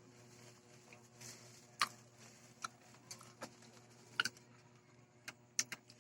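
Faint crunching of nacho chips: a handful of short, sharp, isolated crunches and clicks scattered over several seconds.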